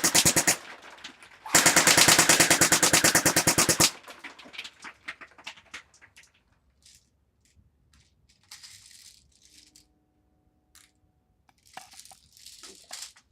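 Airsoft MP5 firing on full auto in two rapid bursts: one ending about half a second in, then another lasting about two and a half seconds. After that come only faint clicks and handling noises.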